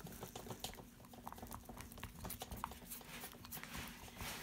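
Faint, irregular small clicks and taps from baking soda being added to a bowl of blue glue mixture.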